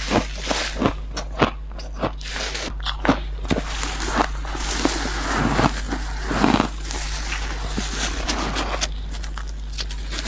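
A person biting into and crunching dry refrigerator ice close to the microphone. There are many sharp, irregular crunches in quick succession.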